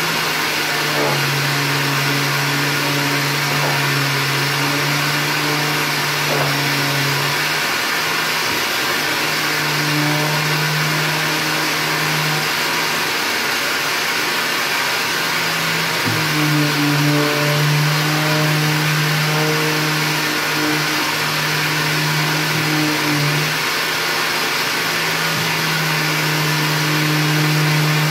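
Electric sander running with a stainless-steel wet-and-dry vacuum drawing off the dust, a steady rushing whoosh throughout. Over it, a low hum drops out and returns several times.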